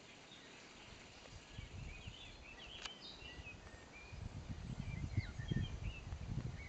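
Wind buffeting the microphone in irregular gusts, a low rumble that builds from about a second and a half in and is strongest in the second half. Behind it, songbirds chirp with short rising and falling notes throughout, and there is a single sharp click about three seconds in.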